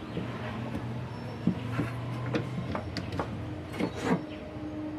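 Washing machine running with a low motor hum and irregular knocks and clicks, the noise this repair puts down to a faulty gearbox. The hum drops out about halfway through, and a higher steady tone comes in near the end.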